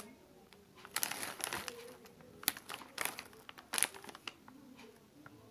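Biscuit packet wrapper crinkling as it is handled, in irregular bursts: a cluster about a second in, then single sharp crackles, dying away near the end.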